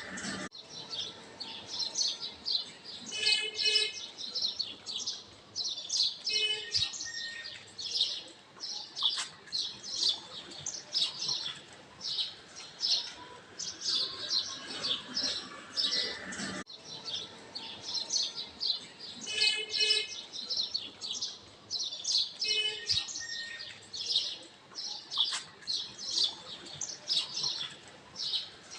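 Many small birds chirping and twittering in quick, overlapping calls, a looped birdsong recording that starts over with an abrupt cut about every 16 seconds.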